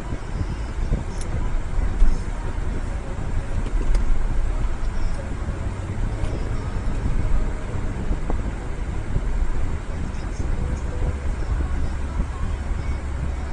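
Steady road and engine rumble of a car driving, heard from inside the cabin.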